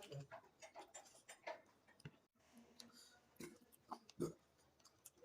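Quiet eating sounds: soft, irregular clicks and wet smacks of a mouth chewing food.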